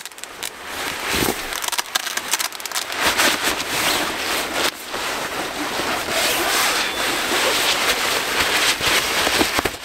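Nylon hammock and tarp fabric rustling and crinkling, with many small crackles, as a person climbs into the hammock and settles in.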